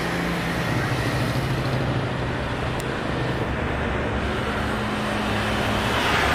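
Jet engines of a Boeing 737 airliner rolling along the ground: a steady rushing noise over a low hum, growing louder near the end.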